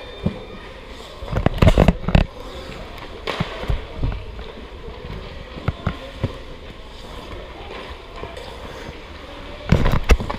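Ice-hockey pucks and sticks clattering as shots are taken on a goalie, heard from a camera mounted on the goal net: a cluster of sharp knocks about one and a half seconds in, a few single knocks through the middle, and another cluster near the end, over the rink's steady background.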